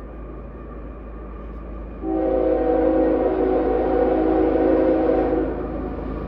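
Air horn of an approaching CSX freight train's lead diesel locomotive: one long blast of several tones sounding together, starting about two seconds in and cutting off after about five seconds, over a low rumble.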